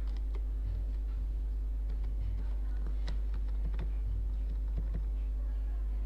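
Computer keyboard keystrokes: scattered, irregular sharp clicks, a few each second, over a steady low hum.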